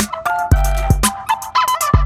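Background music with a steady drum beat and a simple melody.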